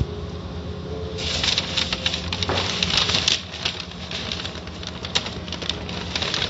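Automatic car wash: water spray and wet cloth strips pattering and slapping densely on the car's body, starting about a second in. A steady low machine hum runs underneath.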